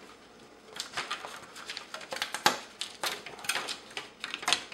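Sharp clicks and crackles of a flexed cut sheet as parts are snapped loose from their parts tree, starting about a second in and going on irregularly, the loudest snap midway.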